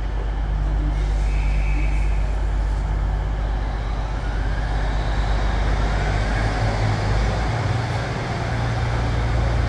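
Class 150 Sprinter diesel multiple unit's underfloor diesel engines running steadily as it waits to depart. Near the end the low engine note changes as it takes power to pull away.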